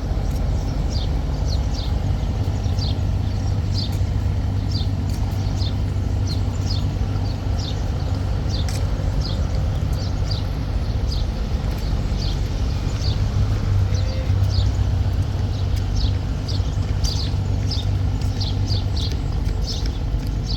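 Steady low drone of a boat engine pushing a laden rock barge, with a bird chirping over it in short, high, falling notes, about two a second.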